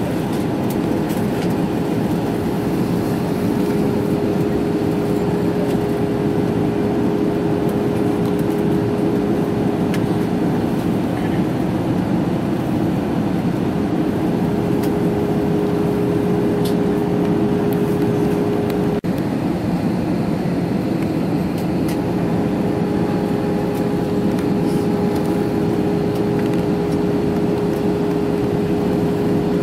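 Steady cabin noise of an Airbus A320-family jet airliner in flight, engines and rushing airflow with a steady hum tone, during the descent for landing.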